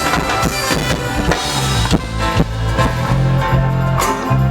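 Band music through a stage PA at a sound check: a drum kit keeps the beat under heavy held bass notes, with a cymbal crash about four seconds in.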